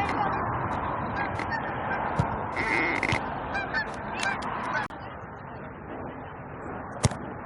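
A flock of geese honking, many overlapping calls, thinning out after about five seconds. A single sharp knock comes near the end.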